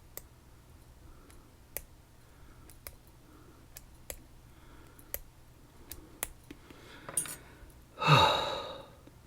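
Scattered light clicks of small metal lock parts being handled, then a loud breathy sigh about eight seconds in.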